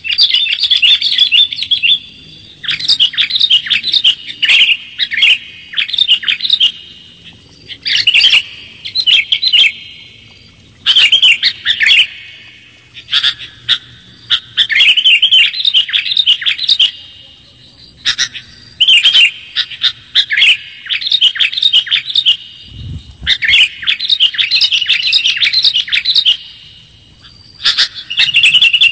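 Sooty-headed bulbul (kutilang) song, loud and close: short bubbly, warbling phrases repeated every two to three seconds with brief pauses between them, as played from a recording to lure wild bulbuls.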